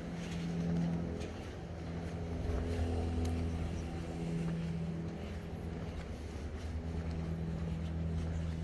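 A motor running steadily with a low hum that swells and eases a little.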